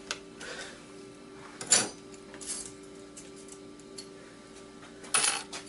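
A few sharp metal clicks and clinks of hard drive parts being handled, the loudest about two seconds in and a quick cluster near the end, over a steady faint hum.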